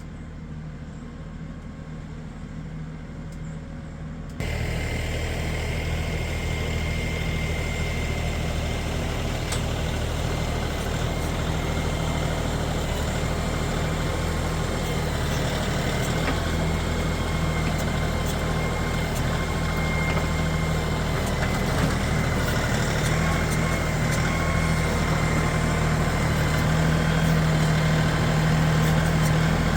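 Farm tractor engine running steadily, with a faint high whine over the low engine note. It is quieter for the first four seconds, then louder, rising slightly toward the end.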